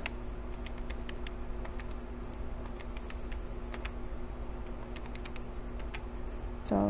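Calculator keys being tapped in a quick, irregular run of light clicks while adding up figures.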